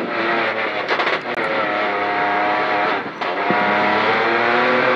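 Rally car engine at high revs, heard from inside the cabin while racing on a stage. The revs hold steady, drop briefly about three seconds in, then climb again.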